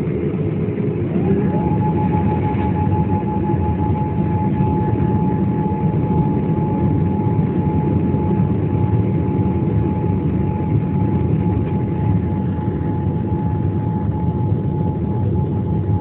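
Steady engine and airflow noise of an airliner, as heard inside the cabin during landing. A single whining tone rises in pitch about a second in and then holds steady over the noise.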